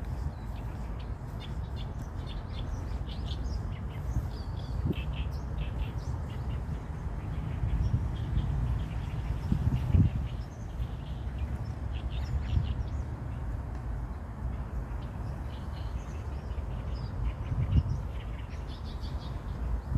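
Wild birds chirping in short high calls, scattered irregularly, over a steady low rumble. A few soft thumps, the strongest about halfway through.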